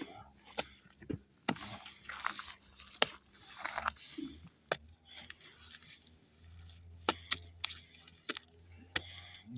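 Irregular sharp clicks and knocks, about nine of them, with short stretches of crunching and scraping in between.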